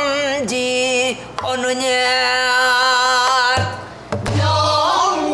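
Female pansori singer holding long, wavering sung notes with wide vibrato. A few sharp strikes on a buk barrel drum accompany the voice, one of them about four seconds in.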